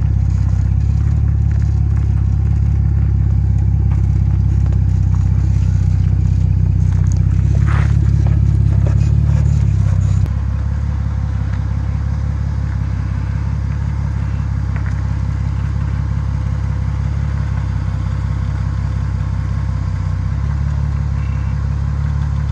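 Jeep Cherokee XJ's 4.0-litre straight-six running low and steady through a Flowmaster 40 Series exhaust as it crawls at low speed, with tyres crunching and scraping over stones and gravel. The sound steps down a little in level about ten seconds in.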